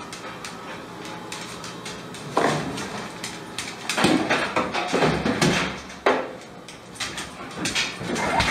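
An oven door clattering and knocking on its hinges in a series of sudden bangs as a dog noses it up and pushes it shut.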